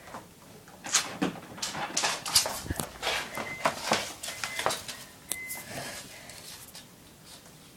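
Irregular scuffling, rustling and light knocks for a few seconds as a thrown toy bird lands and a cat chases and pounces on it, dying down near the end.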